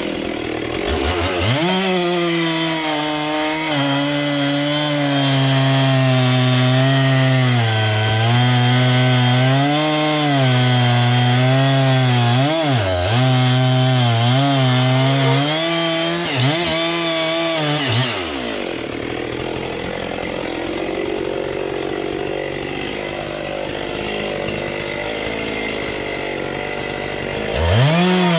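Gas two-stroke chainsaw cutting through sawmill cutoffs on a sawbuck, the engine held at high revs, its pitch sagging and recovering as the chain bites. About 18 seconds in the engine note falls away, and near the end there is one quick rev up and back down.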